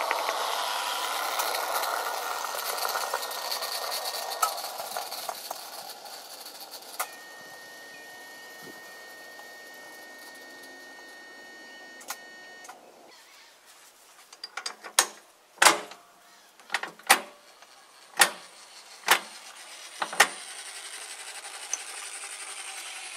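A 1:24 scale model tram runs on a garden track: its running rattle fades over the first several seconds, then a steady high whine lasts about six seconds. After that comes a run of sharp clicks, about seven loud ones over six seconds, as the handle of an old Sydney electric train controller is notched.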